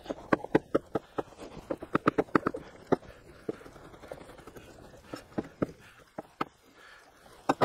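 Kitchen knife chopping garlic cloves on a wooden cutting board: a run of sharp, irregular knocks, quick for the first few seconds, then sparser and more spread out.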